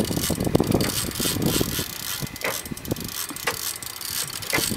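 Shimano Saragossa spinning reel clicking irregularly while a hooked bluefin tuna pulls hard on the bent rod.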